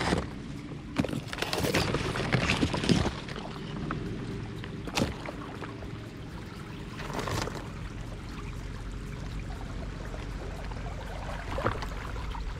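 Fast-flowing canal water rushing and splashing, with heavier splashes in the first few seconds and a sharp knock about five seconds in.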